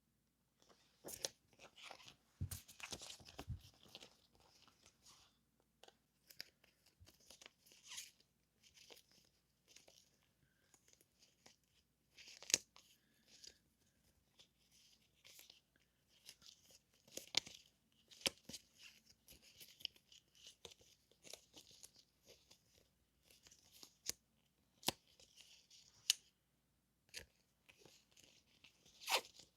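Paper and plastic-wrapped stationery being handled: irregular soft rustling and crinkling, with scattered sharp taps and clicks.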